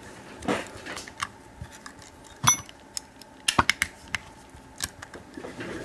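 Small steel hex keys and tools clicking and clinking as they are handled and tried against the padlock's Allen screw. The clicks are scattered, with one ringing clink about two and a half seconds in and a quick run of clicks a second later.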